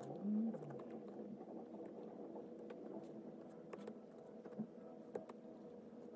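Scattered light clicks and taps of a stylus tip on a tablet's glass screen, over a low steady background hum. A brief low, falling sound just after the start is the loudest moment.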